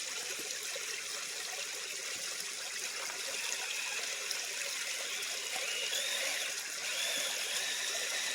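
Small stream and waterfall running steadily over rocks, a continuous trickling water sound.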